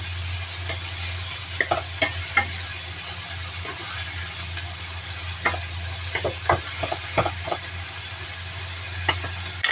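Oil sizzling in a frying pan while a cooking utensil stirs, scraping and clicking against the pan in short flurries: about two seconds in, again between about five and seven and a half seconds, and near the end. A steady low hum runs underneath.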